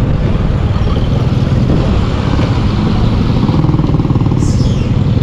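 Motorcycle engine running steadily while riding, with a brief high falling squeal about four and a half seconds in.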